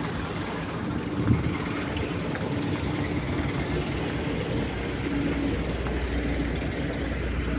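Buses' engines running in a parking area: a steady low rumble with a hum that comes and goes, and a single thump about a second in.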